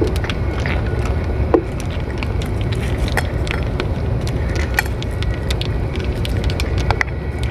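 A cat eating wet food from a metal dish close up: quick wet chewing and lapping clicks, with a few sharper taps against the dish, over a steady low rumble.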